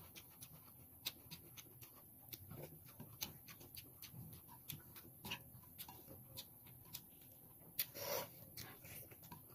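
Faint eating sounds of a person eating by hand: chewing and mouth smacks, with scattered light clicks of fingers picking food from a plate. A brief louder mouth sound about eight seconds in.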